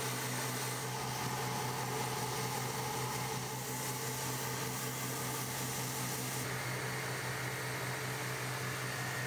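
Prototype wood-fired boiler blowing off steam: a steady hiss with a low hum underneath. The highest part of the hiss drops slightly about two-thirds of the way through.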